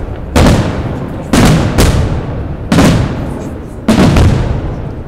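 Aerial firework shells bursting in quick succession: about six loud booms in five seconds, two of them close together, each trailing off into a rolling echo.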